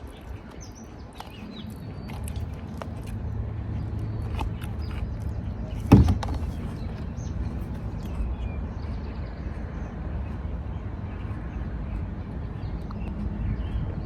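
Outdoor background: a steady low rumble with scattered small clicks and a single loud knock about six seconds in, with faint birds chirping.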